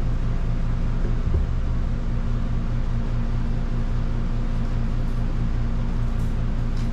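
Steady low mechanical hum of a running machine, such as a fan or air-conditioning unit, with a faint pulse in it and a brief low thump about a second and a half in.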